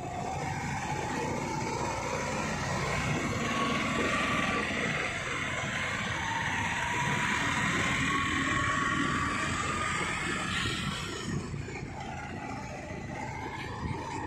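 Motorcycle engine running under way with road and wind noise, a faint whine in it slowly rising in pitch as it speeds up, then easing off about ten seconds in.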